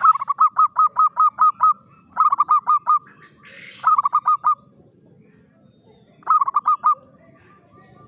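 Zebra dove (perkutut) giving rapid staccato calls: four quick runs of short, evenly repeated notes, the first of about eight notes and the others of about five, each run lasting under two seconds.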